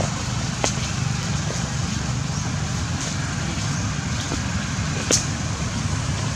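Steady low rumbling background noise, with two faint clicks.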